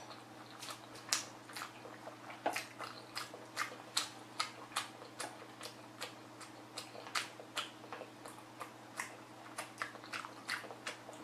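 Close-miked chewing of a large mouthful of rice in black bean sauce: moist mouth clicks and smacks about two to three times a second, with the lips closed.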